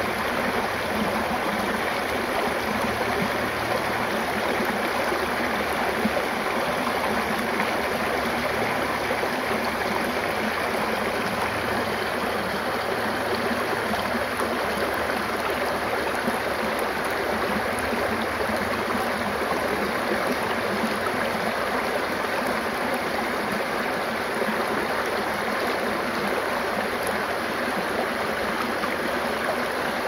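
Shallow stream of clear water rushing and gurgling over rocks and small cascades, a steady splashing flow that does not change.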